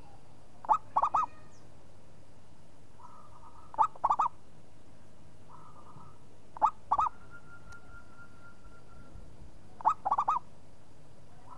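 Zebra dove (perkutut) cooing: four phrases about three seconds apart, each a sharp opening note followed by a quick rolling run of two or three notes.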